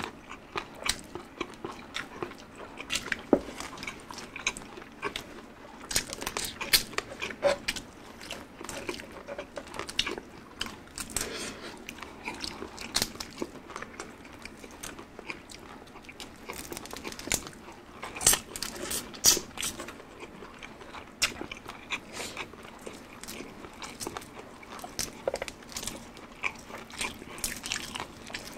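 Close-up crunching and chewing of crispy deep-fried food (chicharon bulaklak, bagnet and shrimp), with sharp, irregular crunches that bunch into clusters of bites.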